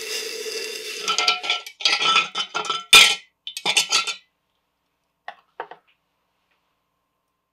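Freshly cast silver piece quenched in a glass jar of water: a fading sizzle with the glass ringing. Then a run of clinks of metal against the glass jar as the piece is fished out, with one louder knock about three seconds in and two faint ticks a little after five seconds.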